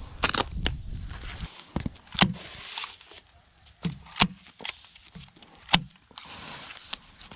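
Building work: a low hum that stops about a second and a half in, then a handful of sharp, irregular knocks and clatters, as of timbers and tools being handled.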